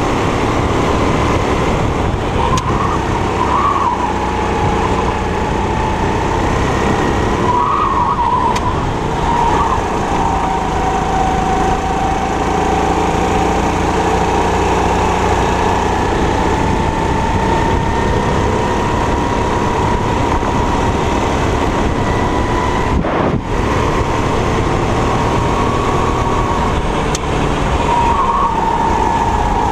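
A 270 cc four-stroke kart engine running near full throttle, its whine sinking and climbing with the kart's speed through the corners. There are a few short warbles in pitch, and one brief dip about 23 seconds in.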